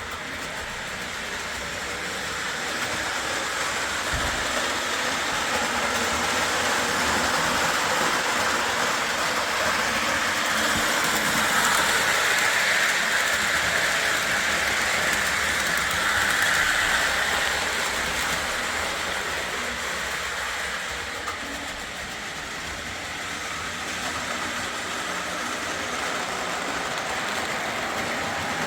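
O gauge Lionel Alco FA diesel locomotives pulling a boxcar train around three-rail track: a steady rumble of wheels on the rails and motor hum. It grows louder toward the middle as the train passes close, eases off for a moment, then runs on evenly.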